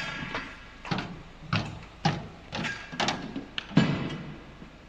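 A run of irregular metal clunks and knocks, about seven, from stainless steel poles being handled on the truck's aluminium checker-plate floor. The first knock rings briefly and the loudest comes near the end.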